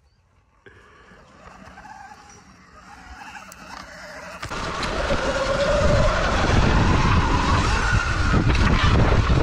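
Sur-Ron electric dirt bike riding over grass: a faint electric-motor whine grows slowly louder. About halfway through it changes abruptly to loud wind noise on a bike-mounted camera, with the motor's whine rising and falling under it.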